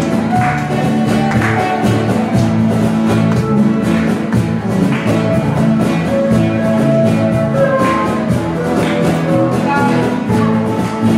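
Live band music: guitars, bass guitar and percussion playing an Indo song with a steady beat and long held melody notes.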